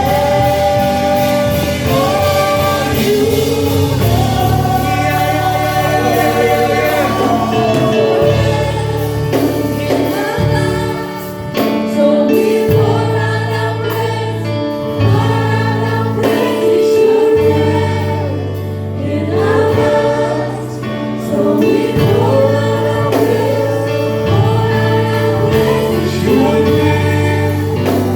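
Gospel choir singing with instrumental backing and a sustained bass.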